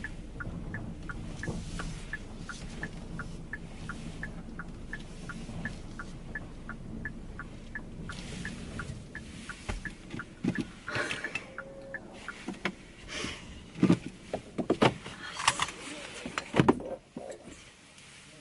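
Car indicator ticking evenly, about three ticks a second, over the low hum of the car cabin. The ticking stops about eight seconds in, and a run of loud knocks and rustles follows.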